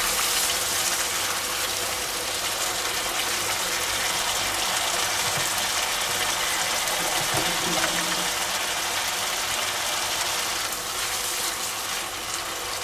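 Chopped-tomato and vegetable sauce sizzling steadily in a hot frying pan, with a wooden spatula stirring through it at times.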